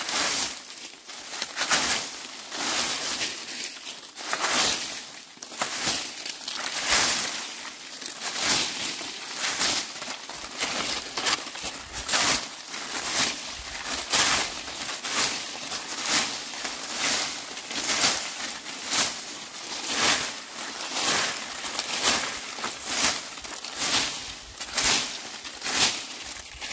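Dry leaves being swept with a broom, in steady strokes about one a second, each stroke a rustle.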